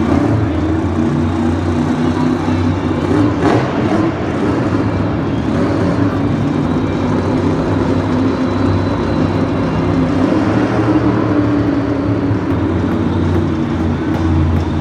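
Loud engine noise of a big motor vehicle running steadily, its pitch wavering slightly, with a brief sharp noise about three and a half seconds in.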